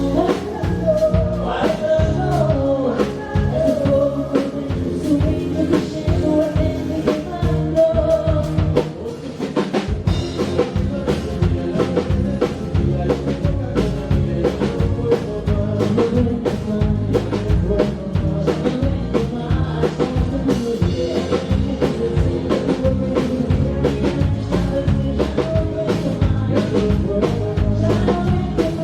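Live band playing on stage with a drum kit keeping a steady beat under a sung melody. The band drops back briefly at about nine seconds, then carries on with the drums to the fore.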